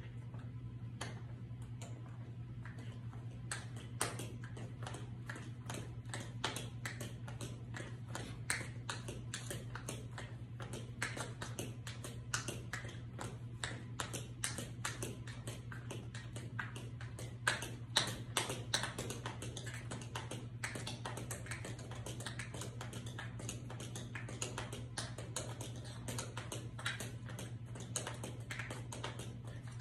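Tap dancing in patent tap shoes: metal taps striking a hard tiled floor in quick, irregular runs of clicks, unaccompanied, with the loudest flurry a little past the middle. A steady low hum sits underneath.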